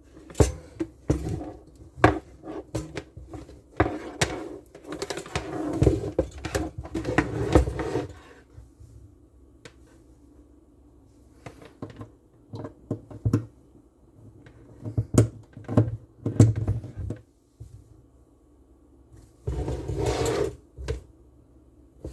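Handling noises: a run of knocks, clicks and rustling, busiest over the first eight seconds, then scattered clicks and a short burst of rustling near the end.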